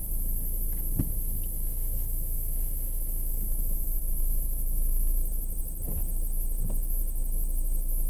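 Car driving, heard from inside the cabin: a steady low road and engine rumble with a steady high hiss. A few soft knocks come about a second in and twice near the end.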